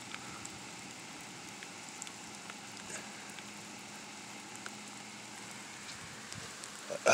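Steady light rain hissing, with scattered faint drop ticks. A louder sound cuts in right at the end.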